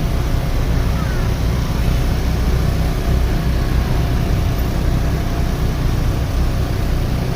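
Steady low rumble of a vehicle's engine and road noise, without any horn melody.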